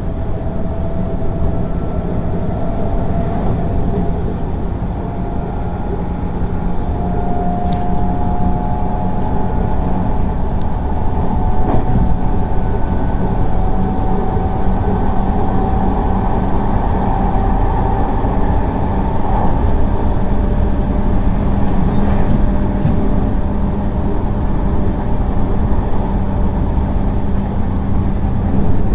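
JR West 221 series electric train running, its DC traction motors under field-added excitation control. A steady rumble of wheels on rail sits under a motor and gear whine that rises slowly in pitch as the train gathers speed, with a short sharp click about eight seconds in.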